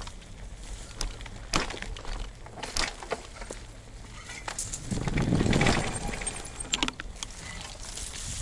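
Mountain bike rolling along a dirt trail, rattling and clicking irregularly over bumps. About five seconds in there is a louder rush of noise for about a second.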